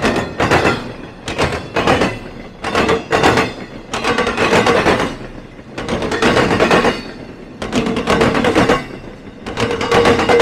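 Train wheels banging over a railroad diamond crossing: clusters of heavy clanks, one group every second or so as each truck crosses, with a steady tone under them.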